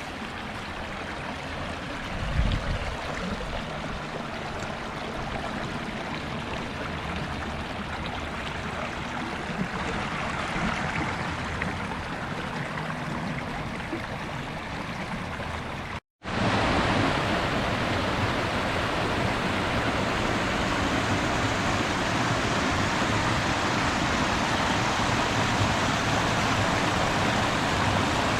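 Steady rushing of stream water. It cuts out abruptly for an instant about sixteen seconds in, then returns louder.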